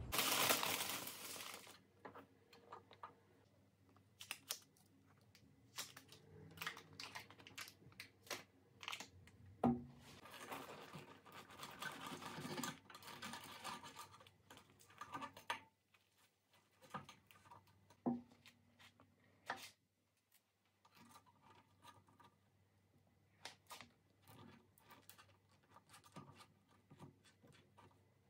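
Table knife scraping butter across a flaky croissant, with the crisp pastry crackling and tearing and short clicks of the knife against the plate. A brief rush of noise opens it in the first second or so.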